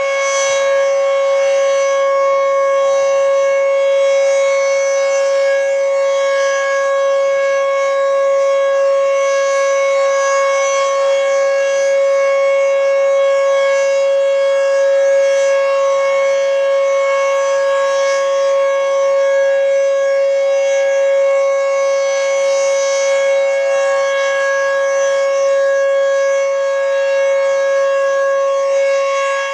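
Federal Signal Fedelcode Model 20 dual-rotor electromechanical siren sounding a steady, loud, high tone at full speed, its pitch held level throughout.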